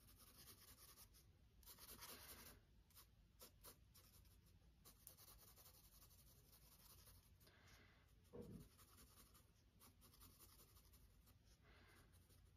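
Faint scratching of a soft charcoal pencil on sketchbook paper in short, irregular shading strokes, with one soft thump about two-thirds of the way through.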